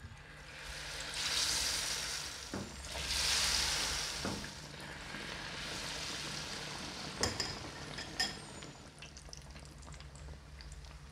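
Battered gabin cracker squares deep-frying in hot oil. The sizzle swells loudly twice as pieces go into the oil, then settles into a steadier, quieter sizzle. There are two sharp clicks just past the middle.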